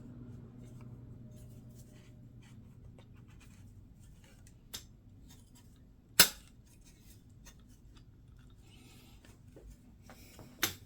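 Faint rustle of plastic model-airliner parts being handled, with two sharp clicks, one about six seconds in and one near the end.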